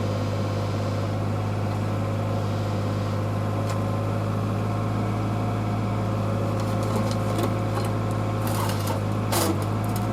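Kobelco mini excavator's diesel engine running at a steady idle, with a few metallic clicks and clatters about three-quarters of the way in.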